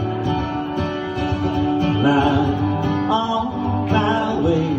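Acoustic guitar played steadily, accompanying a country-style song.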